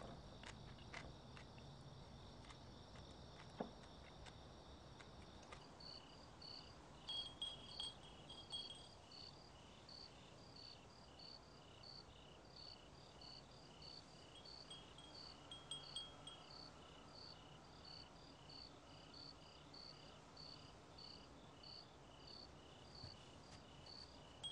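Faint insects chirping: a steady high trill gives way about five seconds in to chirps repeating about twice a second, while a wind chime tinkles lightly twice.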